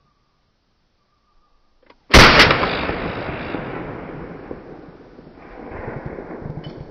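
A single very loud gunshot about two seconds in, with a second sharp crack a quarter second after it, then a long rolling echo that slowly dies away over several seconds.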